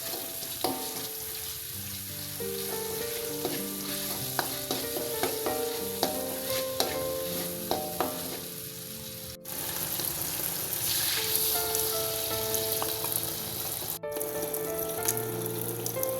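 Chicken sizzling as it fries in oil in a pan, a steady crackling hiss that is brighter after about nine seconds, with light background music over it.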